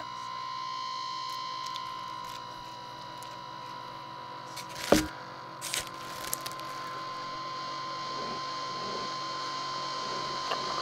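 A steady electrical-sounding hum with a high whine in it, broken by one loud sharp knock about five seconds in and a few lighter clicks just after.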